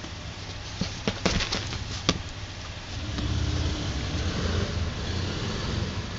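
A few light sharp taps in the first two seconds, then a low steady rumble from about three seconds in.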